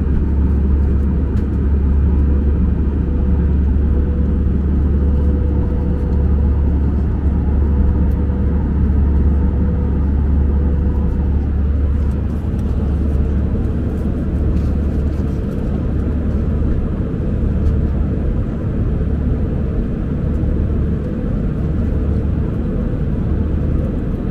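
Steady cabin noise inside a jet airliner in flight: a deep, even rumble of the engines and airflow, with a faint steady tone above it.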